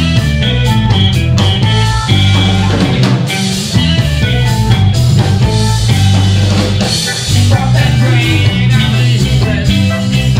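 Live reggae band in full swing: a heavy electric bass line under drum kit, electric guitar and keyboard, all coming in together at the start after a drum lead-in.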